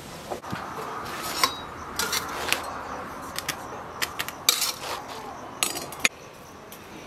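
Light clinks and knocks of a metal spatula against a metal cooking pot, a dozen or so scattered taps, as the pot of layered bread is handled.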